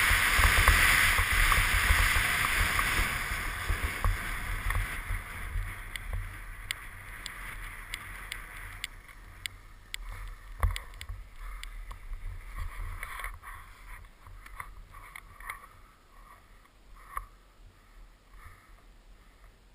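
Skis hissing over snow with wind rumbling on the helmet camera's microphone, fading steadily as the skier slows; then scattered light crunches and clicks of skis on rough snow.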